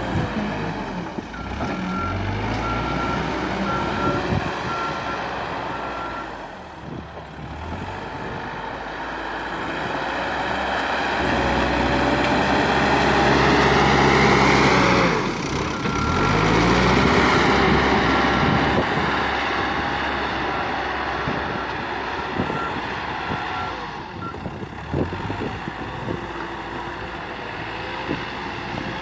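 Cat 432F2 backhoe loader's diesel engine working under varying throttle, revving up to a peak and dropping back. Its reverse alarm beeps about twice a second in two spells, early and again in the second half.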